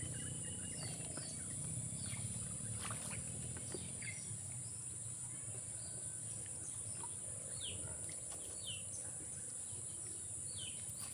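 Outdoor ambience: a steady high-pitched insect drone, with a few short, falling bird chirps now and then.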